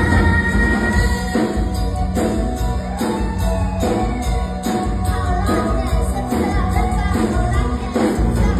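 Song played with a steady beat and a singing voice.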